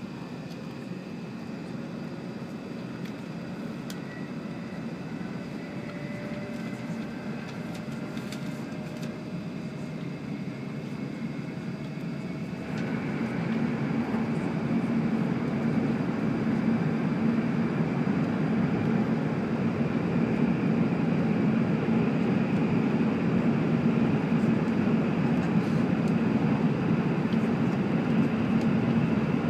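Cabin noise of an E7-series Shinkansen running at speed, with a faint whine rising slowly in pitch. About 13 seconds in the noise jumps abruptly louder as the train enters a tunnel, and then holds as a steady, heavier rumble.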